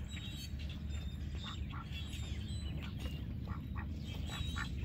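Domestic ducks quacking in a string of short calls over a low steady rumble.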